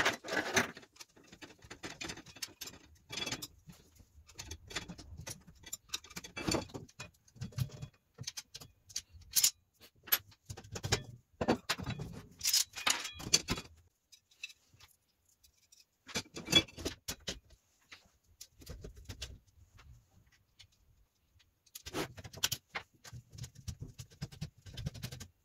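Metal parts of a telescope mirror cell, steel triangles and aluminium bars, clinking and knocking as they are handled and fitted together on a wooden table: irregular clicks and clatters with a few quiet pauses.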